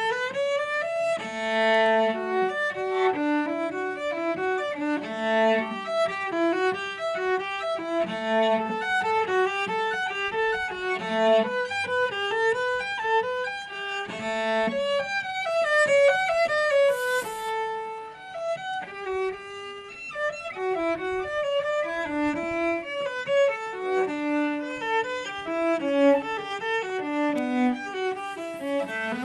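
Solo cello played with the bow: a continuous, quick-moving line of notes that changes pitch several times a second.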